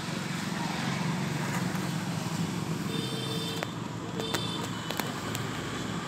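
Outdoor street ambience: a steady rumble of road traffic, strongest in the first half. A few sharp clicks and faint high tones come in the second half.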